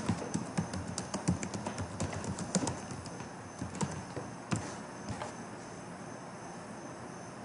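Computer keyboard typing: a quick run of keystrokes for about three seconds, then a few scattered key taps, then only a faint steady background hiss.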